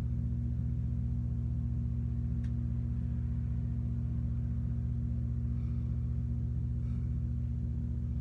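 A steady low drone of sustained deep tones with a faint pulsing, like a gong or singing-bowl ambient music bed, holding unchanged throughout.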